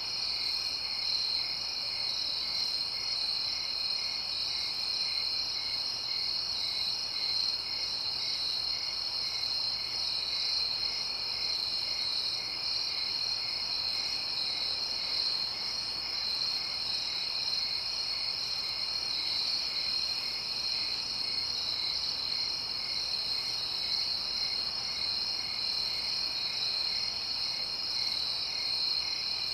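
Night-time insect chorus: a steady, high-pitched trilling with no break, over which a lower chirp pulses evenly about one and a half times a second.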